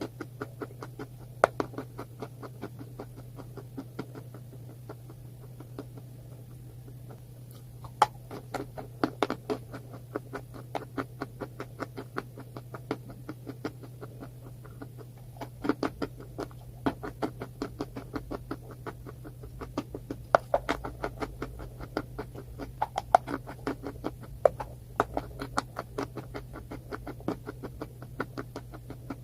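Close-miked ASMR crunching: a dense run of rapid crackles broken by sharper, louder cracks every second or two, easing off for a few seconds early on before picking up again. A steady low hum sits underneath.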